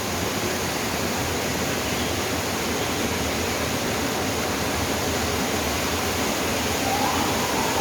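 Waterfall rushing with a steady, even noise. A thin, steady tone comes in near the end.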